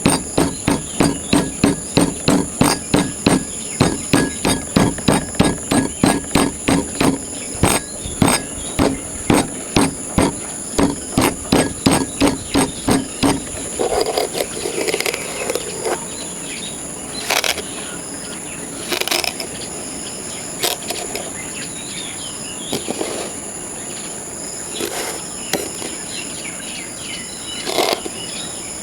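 Tools cutting and chopping into kinetic sand: a quick run of sharp strikes, about two or three a second, for roughly the first half, then only scattered taps and clicks. A steady high-pitched chirring runs underneath.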